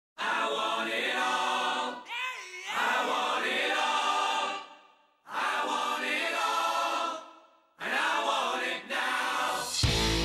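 Background music: a layered group of voices singing unaccompanied in four short phrases with brief pauses between them, then a loud electric guitar and band coming in near the end, the opening of a rock song.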